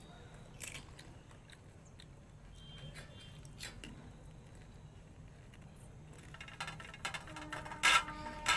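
A few light clicks and taps from hands at steel plates as phuchka puris are picked up and cracked open for eating. Near the end a louder noisy stretch with two sharp loud spikes and a steady pitched tone of unclear source.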